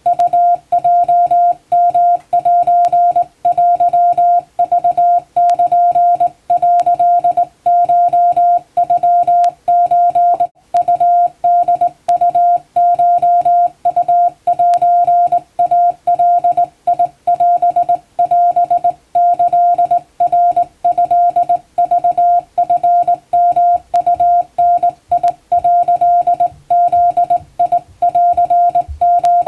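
Hand-keyed Japanese (wabun) Morse code: one steady beep tone switched on and off in short dots and longer dashes, with brief silent gaps between characters.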